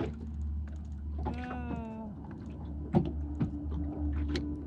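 Light, scattered clicks from a spinning reel and rod being handled over a constant low rumble. A brief pitched hum comes about a second in, and a steady low hum starts about three seconds in.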